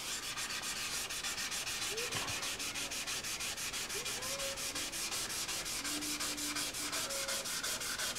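Hand wet-sanding of the clear coat on a painted motorcycle fairing panel: sandpaper rubbing back and forth in quick, even strokes, about six or seven a second, as the clear coat is sanded flat before the next coat.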